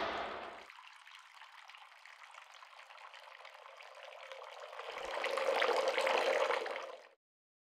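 Bath tap running into a filling bathtub, faint at first and swelling up over about two seconds before cutting off suddenly near the end. A hiss fades out in the first second.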